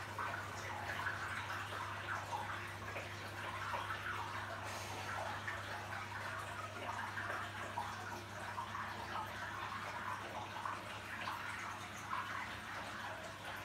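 Aquarium water circulation: water from the pump splashing and trickling steadily at the tank's surface, over a steady low hum.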